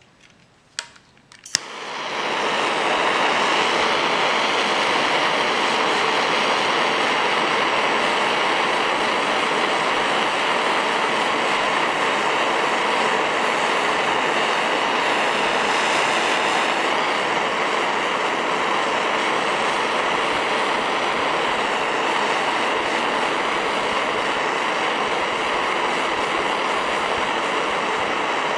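Butane torch lit with two igniter clicks, then running with a steady loud hiss, heating the nail of a dab rig before a dab.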